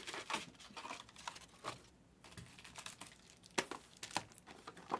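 Faint, irregular taps, clicks and crinkles of hands handling shrink-wrapped trading-card boxes and packs, with a couple of sharper knocks about three and a half to four seconds in.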